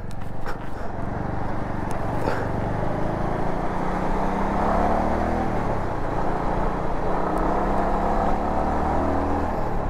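Bajaj Avenger 220 motorcycle's single-cylinder engine running at a steady cruising pace, heard from the rider's seat with wind rushing over the microphone.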